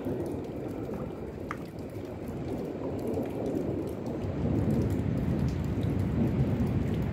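Rain falling steadily with scattered drip ticks, under a low rumble of thunder that grows louder about halfway through.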